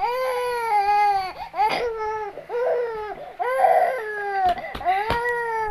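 Infant crying hard in a string of long, high-pitched wails with short gasps for breath between them: a hunger cry.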